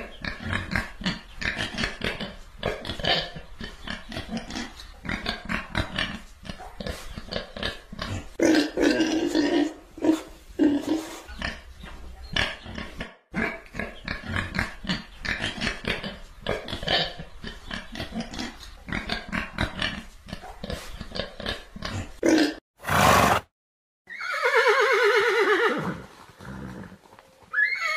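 Domestic pigs grunting and snuffling in a steady run of short grunts, with a few louder, longer grunts about nine seconds in. After a short burst of noise and a brief gap, a horse gives a long, wavering whinny that falls in pitch.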